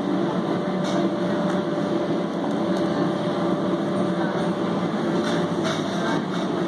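Plastic spinning-bowl toy rumbling steadily as it is spun round on a foam floor mat, with a few faint knocks.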